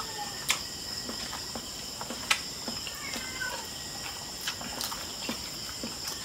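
Crickets chirring, a steady high-pitched background, with scattered sharp clicks and smacks from eating barbecue skewers and rice by hand; the loudest click comes a little past two seconds in.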